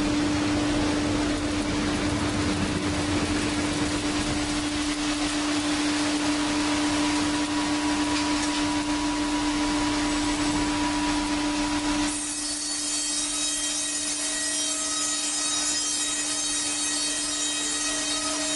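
A power saw running at a steady hum, cutting through wood. About twelve seconds in the sound changes abruptly: the cutting noise drops away, leaving the hum and a high whine.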